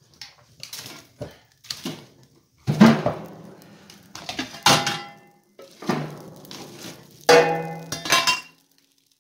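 Split firewood being loaded into a wood stove: a string of wooden knocks and clunks as logs hit each other and the stove, the loudest about three seconds in. The last few, near the end, ring briefly like metal.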